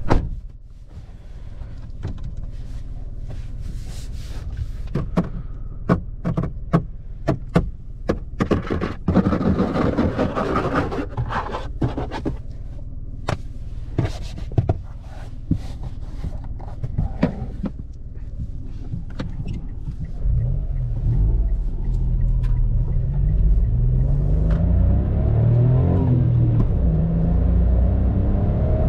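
Hands knocking and rubbing on the interior door trim of a Mitsubishi Space Star: a run of sharp taps and a scraping rub over a low idling rumble. About two-thirds of the way in, the car's 1.2-litre three-cylinder MIVEC engine pulls away and accelerates through the gears, its pitch climbing and dropping back at each upshift.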